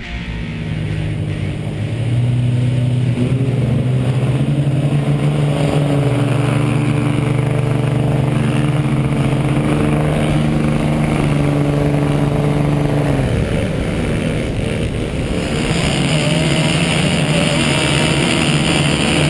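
Diesel pickup truck engines running on a sand drag run. A steady, loud engine drone sets in about two seconds in and eases off around thirteen seconds. Another truck's engine, with more hiss, comes in near the end.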